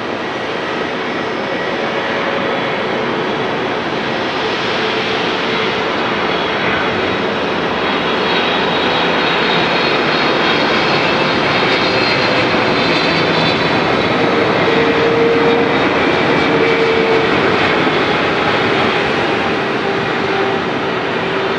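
Twin jet engines of a Boeing 777 on landing approach: a steady rushing engine noise with a thin whine over it, swelling as the airliner passes close by and easing a little near the end.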